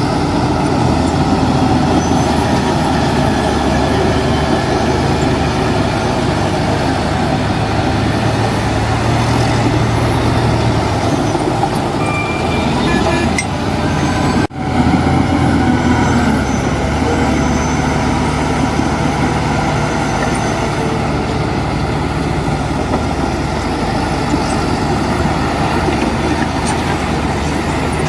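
Heavy diesel construction machinery, a bulldozer or dump truck, running steadily under load, with a brief break in the sound about halfway through.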